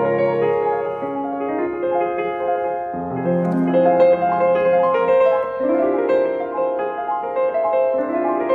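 Fazioli grand piano played in a slow, gentle passage of held chords, a new chord with a deep bass note struck about three seconds in and again past the middle.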